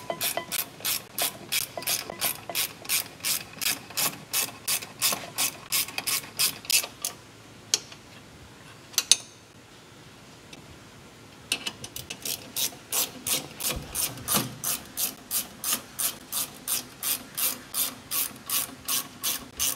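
Ratchet wrench clicking steadily, about two to three clicks a second, as it turns a brake-caliper mounting bolt tight. It pauses for about four seconds midway, with only a couple of single clicks, then starts again.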